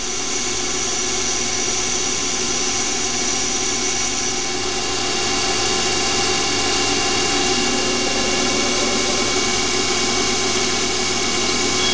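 Small CNC lathe running during a finishing cut with a boring bar inside the bore of a Delrin part: a steady machine hum with several steady whining tones from the spindle and drives. A high whine drops out about four and a half seconds in.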